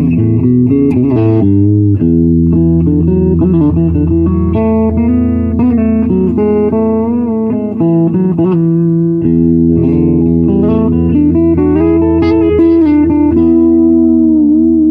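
Electric guitar played through an Ace Tone Fuzz Master fuzz pedal into a Marshall 3210 amp, the old fuzz added to thicken the amp's distortion. Sustained single-note lines, ending on a long held note with vibrato from about fourteen seconds in.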